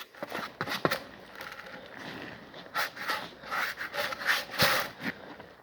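Irregular rubbing and scraping strokes of contact cement being spread thinly around the edges of a styrofoam sheet, with a few light clicks and knocks in between.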